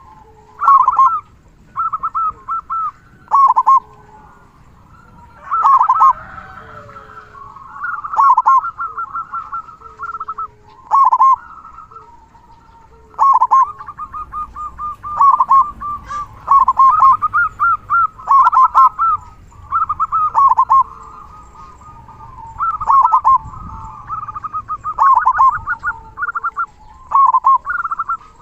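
Zebra dove (perkutut) singing its cooing song, the local type with a big 'kung' voice. Short phrases of quick rippling notes repeat every one to two seconds.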